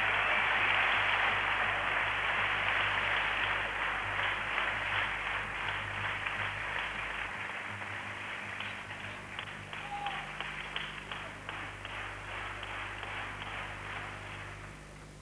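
Large arena crowd applauding between points. The clapping is dense at first, then thins after about eight seconds into scattered separate claps and fades away.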